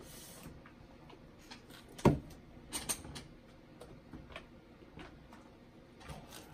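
Tarot cards being handled: scattered soft clicks and card taps, with one louder thump about two seconds in.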